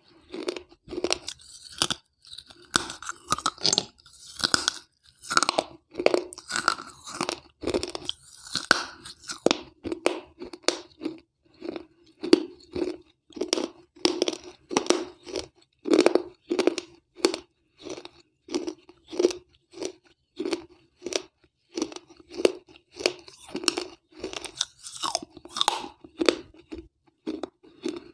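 Close-miked crunching and chewing of shards of a wet terracotta piggy bank (gullak), a steady run of gritty bites at about two a second.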